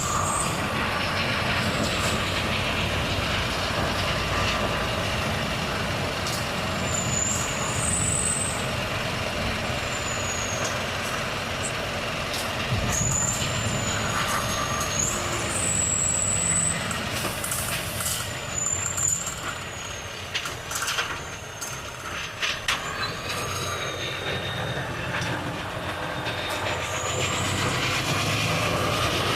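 Volvo FH truck on the move: steady engine and road noise, with high, wavering squeals that come and go, and an uneven stretch with sharp clicks past the middle.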